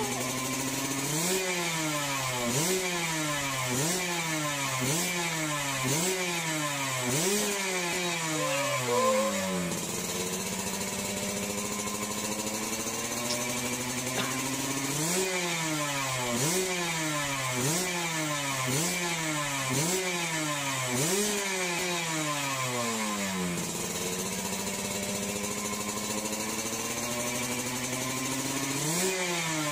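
Motorcycle engine being warmed up, revved again and again: each rev rises quickly and sinks back, about one every second and a quarter. The revs come in two runs of about seven, with the engine idling steadily between them and after them, and one more rev near the end.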